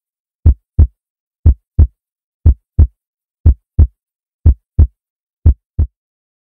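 Heartbeat sound effect: deep double thumps, one pair a second, six pairs in all, the last beat a little softer; it stops near the end.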